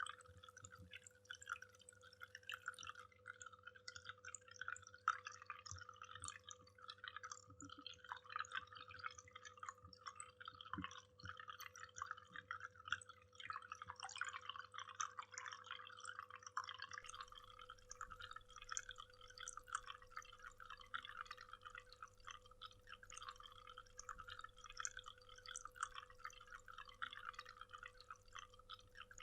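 Waterfall, faint: water splashing and trickling in a dense, steady patter of small drips and splashes.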